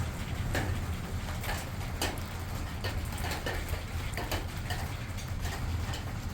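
Irregular light clicks and taps, a few a second, over a steady low hum.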